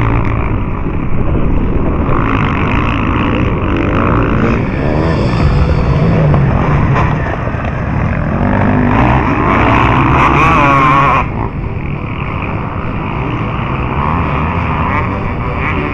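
Several motocross dirt bikes racing past, their engines revving up and down with each throttle and gear change. Their noise drops suddenly about eleven seconds in, leaving fainter engine noise.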